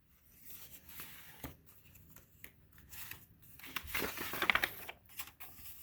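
Rustling, crinkling handling noise, like paper being handled, strongest about four seconds in.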